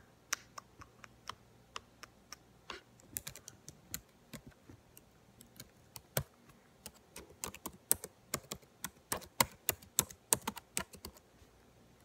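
Irregular clicking of keys being typed on a computer keyboard, sparse at first, then quicker and louder in the second half.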